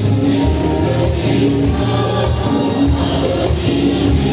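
Instrumental worship music played on electronic keyboards: held chords over a moving bass line, with a steady, fast, high percussion beat.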